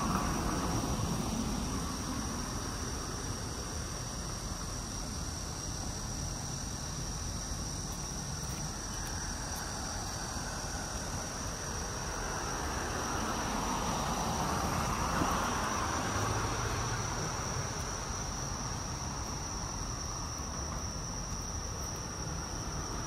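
Insects trilling in one steady high-pitched tone, over a broad background rush that swells at the start and again around the middle.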